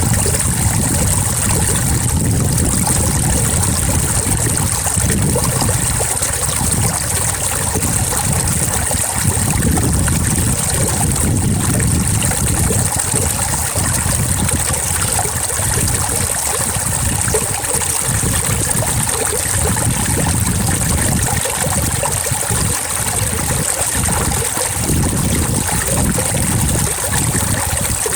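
Water trickling and running in a stream, steady throughout, with a constant high-pitched hiss above it.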